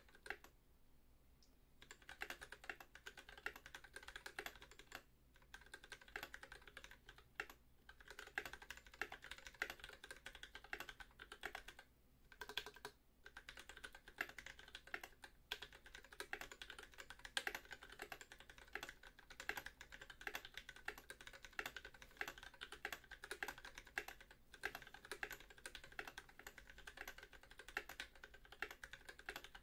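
Typing on an Idobao ID80 mechanical keyboard fitted with Everglide Oreo linear switches (Cherry top housings, lubed with Tribosys 3203) and NK_ x Tai-Hao ABS cubic keycaps: a fast, continuous patter of keystrokes. The typing picks up about two seconds in, with a couple of brief pauses along the way.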